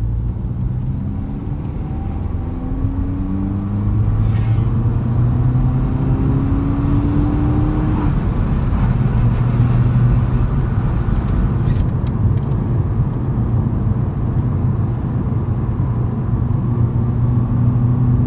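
Mini Cooper S R56's 1.6-litre turbo four-cylinder engine heard from inside the cabin while driving, with tyre and road noise underneath. The engine note rises in pitch for about eight seconds as the car gathers speed, then holds steady at cruise, and rises again near the end.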